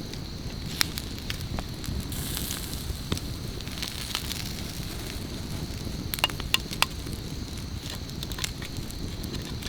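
Campfire crackling: scattered sharp pops and snaps over a steady low rumble, with a few louder snaps close together about six to seven seconds in.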